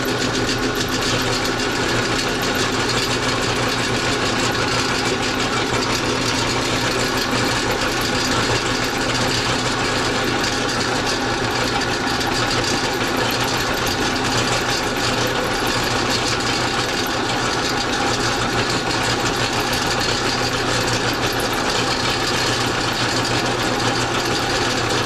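Motor-driven meat grinder running steadily with a constant mechanical hum while raw pork is pushed through it and ground fine.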